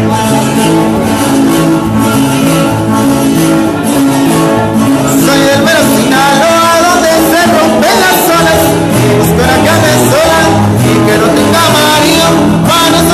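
Latin band music playing continuously, with guitar, a bass line and a singing voice.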